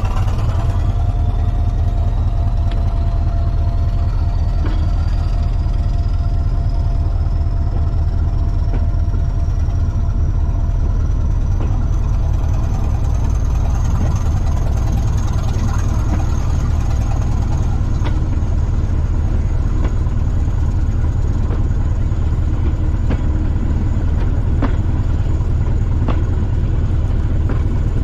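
The diesel engine of a Class 205 'Thumper' diesel-electric multiple unit running with a steady deep rumble, under a high whine that rises slowly over the first dozen or so seconds and then holds. A few sharp clicks come in the second half.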